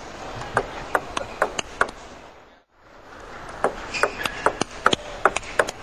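Table tennis ball clicking sharply off the bats and table in fast rallies, two runs of strokes with a brief gap of silence between them, over steady hall noise.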